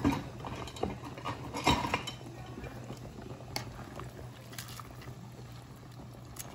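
Pot of spaghetti at a rolling boil, bubbling steadily, while a plastic pasta server stirs the noodles and knocks against the pot. The loudest knocks come right at the start and about a second and a half in.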